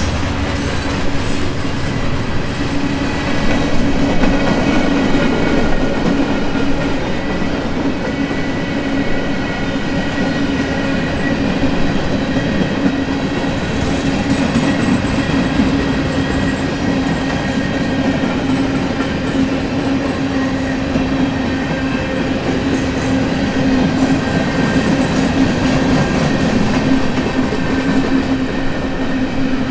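Loaded coil steel freight cars rolling past: a steady rumble with the clickety-clack of wheels over the rails and steady high ringing tones over it.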